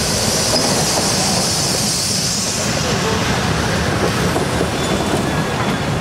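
ČSD 464.202 steam tank locomotive and its train of historic coaches rolling past on the track: a loud hiss fades out about two and a half seconds in, leaving the steady rumble and clatter of the coaches' wheels.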